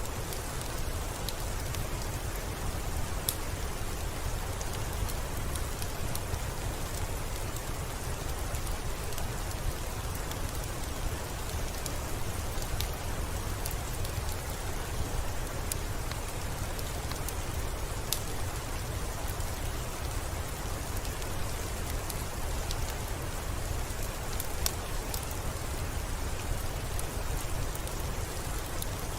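Steady rain, falling as an even hiss with a low rumble underneath and scattered sharp drop ticks.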